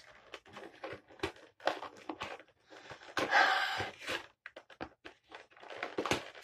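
Packaging of a Pokémon card box being opened: quick irregular crinkles and crackles throughout, with one longer, louder tearing rasp a little past halfway.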